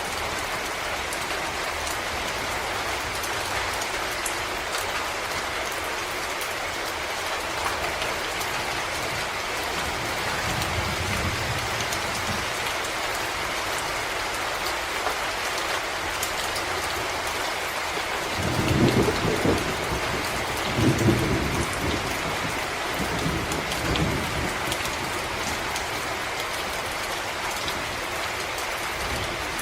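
Steady rain falling on leaves and ground in a forest, an even hiss of many drops. Past the middle come a few deep rumbles, the loudest two close together.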